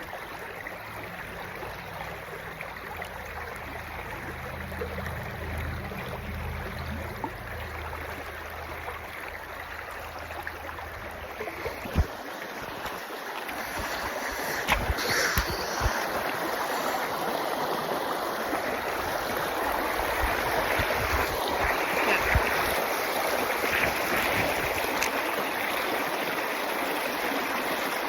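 Creek water running over rocks in a steady rush that grows louder about halfway through, with a few sharp knocks around the middle.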